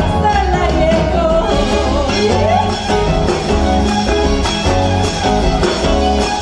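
Argentine folk song with guitar, a steady bass beat and a singing voice.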